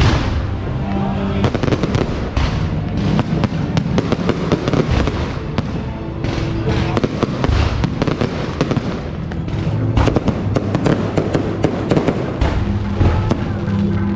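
Fireworks going off in quick succession, many sharp bangs and crackles a second, over music.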